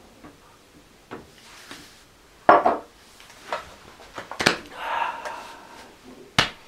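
A man gulping down a glass of fortified wine, then short throaty sounds of reaction, light knocks of glassware on a table, and a sharp knock near the end.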